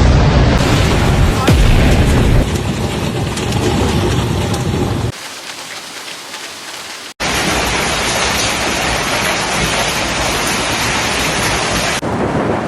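Hailstorm: hail and heavy rain pounding down in a dense, loud roar, heard in a run of clips that cut abruptly several times, with a quieter stretch in the middle.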